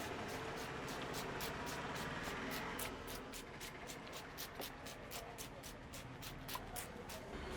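Barber's hands working the hair and scalp in a rhythmic head massage: short rustling strokes about four a second, stopping near the end, over a steady hum of roadside traffic.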